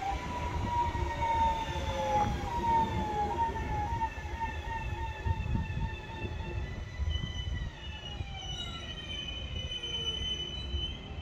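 BM 72 electric multiple units running through the station, with low rumble throughout. For the first five seconds a motor whine falls steadily in pitch. From about seven seconds in, a higher whine or squeal holds steady.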